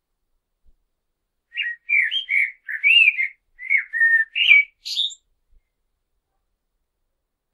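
Common blackbird singing one song phrase, starting about a second and a half in: a run of low, fluty whistled notes, ending in a short, high twitter.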